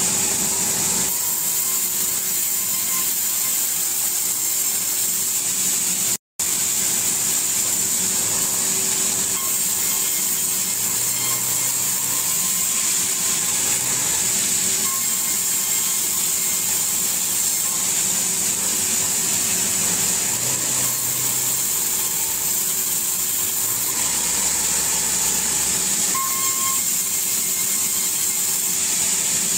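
A powered saw bench running steadily while wooden planks are fed through it and ripped: a constant high hiss over a steady low hum. The sound cuts out completely for an instant about six seconds in.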